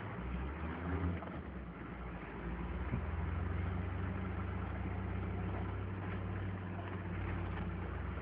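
Engine of a Mercedes-Benz G-Class 'Wolf' off-roader running steadily as it drives, heard from inside the cabin as a low hum that grows a little louder about two and a half seconds in.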